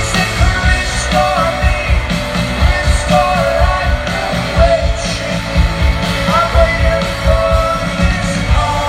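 Rock song with a sung vocal over a driving, fast drum beat.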